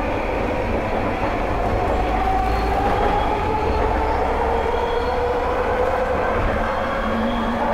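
Vancouver SkyTrain car running along its elevated guideway, heard from inside the car: a steady low rumble of the wheels on the rails under the whine of its linear induction motors, which rises slowly in pitch.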